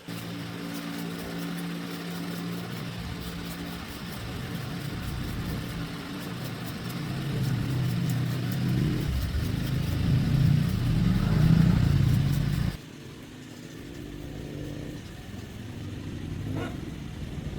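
Motorbike engine running, revved up gradually over several seconds, then dropping suddenly back to a lower, steady run about thirteen seconds in.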